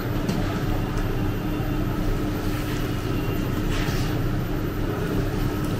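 Steady mechanical hum and rush of a commercial kitchen, with a few light clinks and scrapes of a steel ladle stirring milk in a steel bowl.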